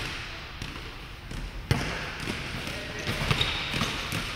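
A basketball bouncing on a wooden gym floor as it is dribbled: a string of irregularly spaced bounces, the loudest a little before the middle.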